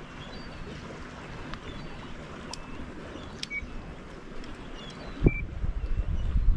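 Sea water lapping against a stone pier with wind, a few faint short chirps and clicks, and a sharp knock about five seconds in, after which wind buffets the microphone.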